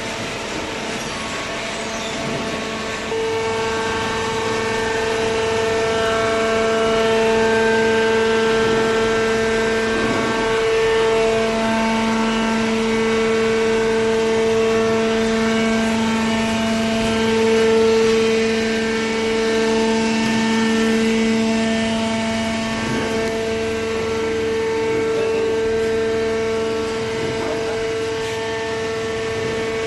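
Hydraulic baler running: a steady machine hum with a strong whine held on two pitches, which gets louder about three seconds in.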